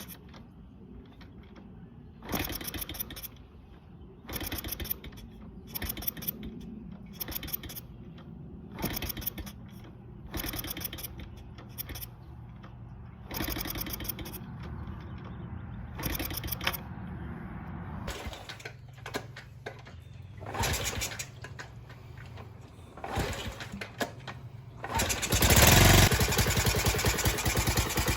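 Small single-cylinder four-stroke engine of a Honda Z50 minibike being kick-started over and over, coughing in short bursts with each kick. Later it catches and keeps running, and near the end it fires up loudly and runs on.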